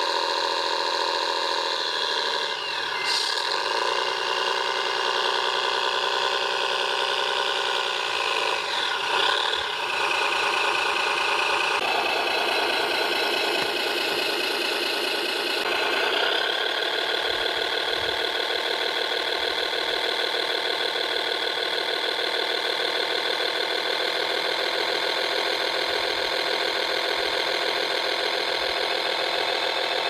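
Radio-controlled model Liebherr crane running: a steady whirring drone made of many tones. It glides in pitch twice and shifts to a new pitch twice more as the crane works.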